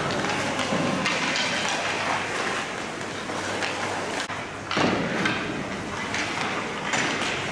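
Ice rink noise of skate blades scraping across the ice with hockey sticks and pucks clattering, and a sharp knock about five seconds in.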